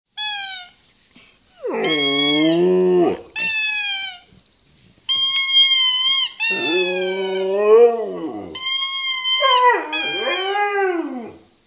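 Siberian husky howling: three long, low, wavering howls, alternating and overlapping with shorter, higher, steady-pitched squeals from a squeaky toy.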